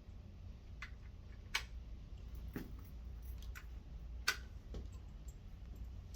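Cartridges being pushed one by one into a rifle magazine, a sharp click for each round, about six clicks at uneven intervals over a low steady hum.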